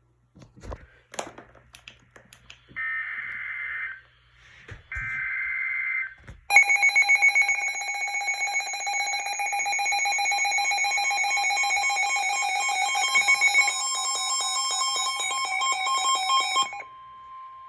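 Two short bursts of the EAS/SAME digital header, a harsh buzzing warble, from a NOAA Weather Radio broadcast. Then a weather alert radio's loud, rapidly pulsing alarm sounds for about ten seconds over the broadcast's steady warning tone. Near the end the pulsing stops and only the steady tone is left.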